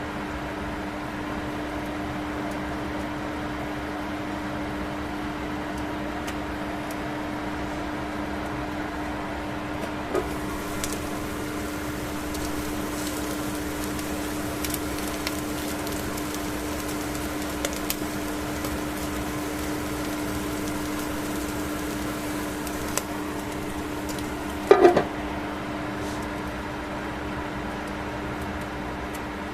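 Microwave oven running with a steady hum while a saury heats inside; from about ten seconds in, faint crackles and pops from the cooking fish, with one louder pop near the end.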